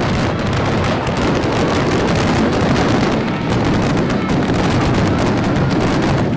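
Fireworks going off in a rapid, continuous barrage of bangs and crackles.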